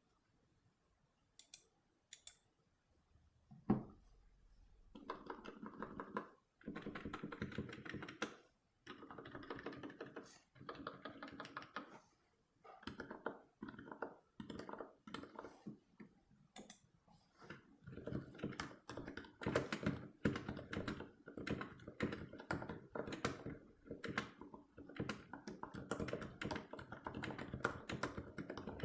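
Typing on a NovelKeys NK65 Entry 65% mechanical keyboard with lubed Gateron silent black linear switches and PBT keycaps. A few single taps and one heavier stroke come first, then fast runs of keystrokes with brief pauses from about five seconds in.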